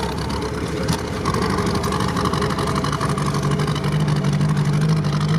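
Jeep Willys engine running under way, heard from inside the cab, with one cylinder dead so it runs on three. A steady low drone grows stronger about three and a half seconds in.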